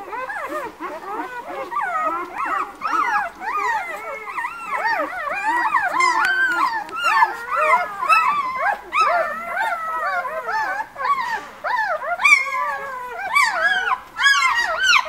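A litter of newborn White Swiss Shepherd puppies squealing and whimpering while nursing: many short, high, rising-and-falling squeaks overlapping one another without pause.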